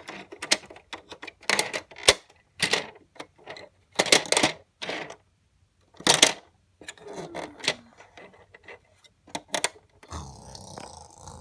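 A string of irregular clacks and clicks of toy trains being handled, with a steadier rushing sound starting about ten seconds in.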